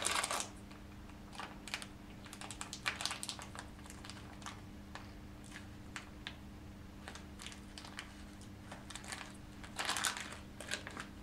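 Small plastic clicks and the rustle of a plastic packet as a pre-filled syringe is connected to a cannula extension set to prime the line, with a louder crinkle of the packet at the start and again near the end.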